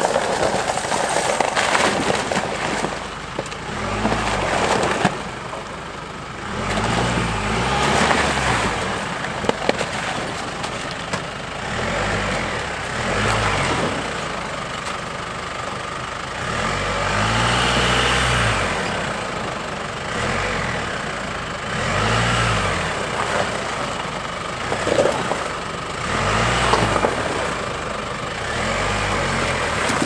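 Jeep Wrangler Rubicon engine revving in repeated short surges, about eight in all, as it crawls over ice and rocks, with a steady crunching and rushing of tyres on ice and stones underneath.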